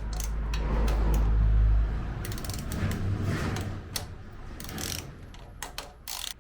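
Metal clicks and scrapes of a hand tool working a screw on a moped's speedometer cable fitting, irregular and a few at a time. A low rumble runs under the first two seconds.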